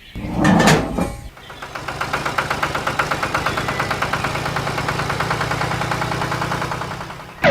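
The small motor of a self-built mini tractor comes in about a second in and runs steadily with a fast, even pulsing, after a brief loud burst of noise at the very start.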